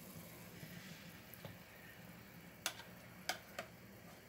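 Black tea boiling faintly in a frying pan, with three sharp clicks of a utensil against the pan a little past halfway.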